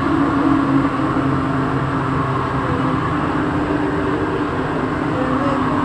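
Santiago Metro NS16 rubber-tyred metro train running at steady speed through a tunnel, heard from inside the driver's cab. The running noise is continuous, with faint whining tones that drift slightly in pitch.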